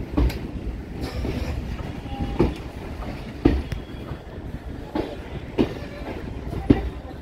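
Wheels of a Hasnabad Local suburban electric train clacking over rail joints and pointwork, heard from inside the coach: a steady low rumble with a sharp clack about once a second, at uneven spacing.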